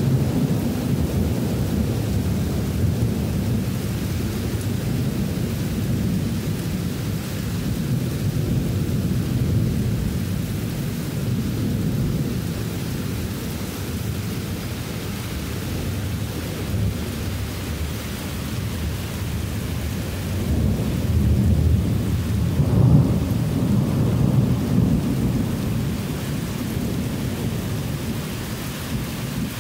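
Heavy thunderstorm: near-continuous low, rolling thunder over the steady hiss of heavy rain, with a louder peal of thunder about three quarters of the way through.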